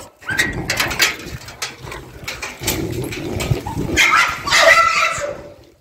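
Agitated, aggressive dog barking and whining, with a longer pitched cry about four seconds in. Knocks and scuffling from handling are heard between the calls.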